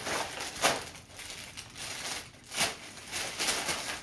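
Crinkling and rustling of packaging being handled, with two sharper, louder crackles about half a second and two and a half seconds in.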